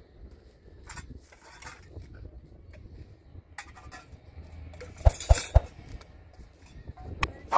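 Pots and utensils clinking and knocking as they are handled, with a few louder knocks about five seconds in.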